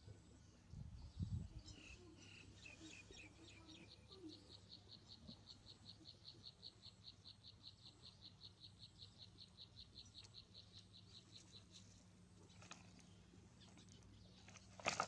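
Faint, evenly paced high-pitched chirping, about five chirps a second, running for several seconds before it stops, over a low steady hum. A single sharp knock comes near the end.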